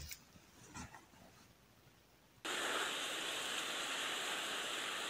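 Near quiet, then about halfway in a steady, even hiss of outdoor lakeside background noise starts abruptly and holds level.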